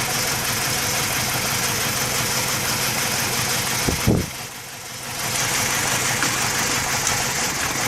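2007 BMW E90 engine idling roughly with a misfire, caused by a dead number 1 ignition coil. About four seconds in there is a sharp knock, then the sound drops away for about a second before the idle comes back.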